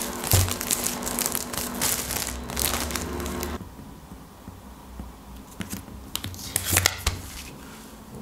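Plastic food packaging crinkling as it is handled. Dense crinkling for about the first three and a half seconds stops abruptly, followed by quieter, scattered rustles and crackles.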